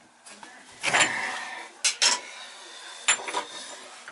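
Metal hand tools clinking and scraping against the stem and handle parts of a three-handle tub/shower faucet: a scrape about a second in that fades away, then a few sharp clinks.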